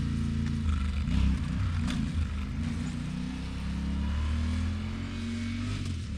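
Yamaha Tenere 700's parallel-twin engine running under way, its pitch shifting a little as the rider rolls on and off, over steady wind rush.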